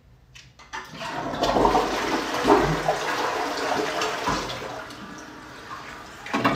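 Toilet flushing: a rush of water starts about a second in and dies away over the last couple of seconds.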